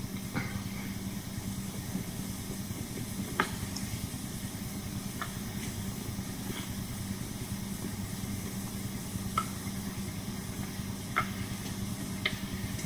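Steady hiss and low hum of an old television recording's background noise, with a few faint ticks scattered through it.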